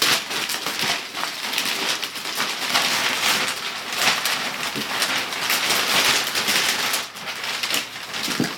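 Gift wrapping paper being torn and crumpled as a present is unwrapped: dense, continuous crackling and rustling that eases a little about seven seconds in.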